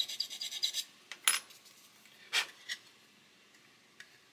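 Small hand file rasping quickly on a plastic model-kit part, stopping about a second in. Then a few sharp clicks and taps as the file is put down and the plastic parts are handled and fitted together.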